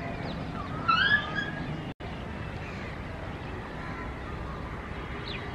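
Birds chirping and calling over a steady outdoor city background hum. The loudest call comes about a second in, and the sound drops out for an instant near two seconds in.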